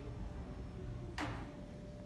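A single sharp click about a second in, over a low steady hum, followed by a faint steady high tone.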